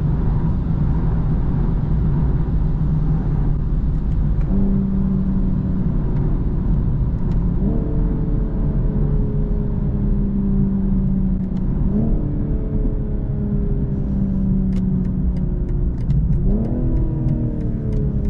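2022 BMW M240i xDrive's turbocharged inline-six, heard from the cabin. At first there is a dense low rumble of engine and road. After about four seconds the engine note comes through clearly and slowly falls as the car slows, jumping up three times as the eight-speed automatic downshifts. Faint light ticks, about two a second, come in near the end.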